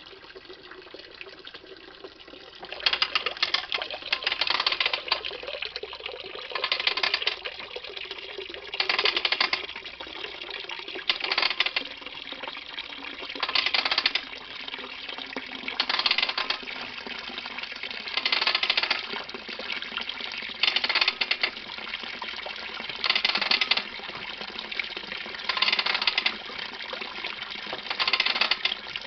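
Grape juice running steadily from a basket press spout into a plastic tub. From about three seconds in, a burst of ratchet clicking comes about every two and a half seconds as the press's ratchet lever is worked.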